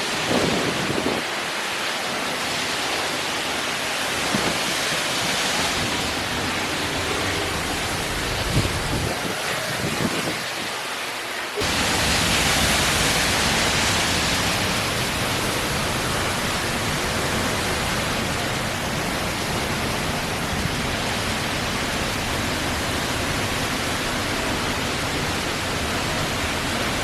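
Waterfall roaring in a steady, even rush of falling water. About twelve seconds in it becomes louder and deeper.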